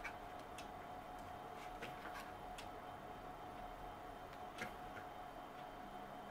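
Faint, irregular ticks and clicks as a hot metal point is pushed through the rim of a plastic plant saucer and the saucer is handled, one click clearer about four and a half seconds in.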